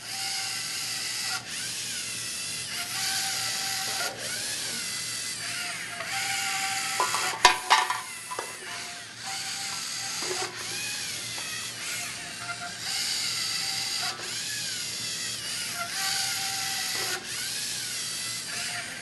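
LEGO Mindstorms NXT robot's servo motors whirring in short runs that stop and start every second or two, the whine rising and falling in pitch as the robot drives forward and back and turns on a looped sensor program. A sharp knock about halfway through.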